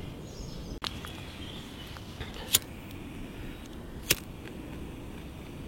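A lighter being struck to light tinder: a faint click about a second in, then two sharp clicks about a second and a half apart.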